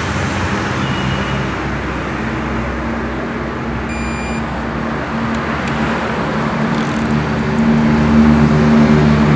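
An engine running steadily, getting louder toward the end, with a short high beep about four seconds in.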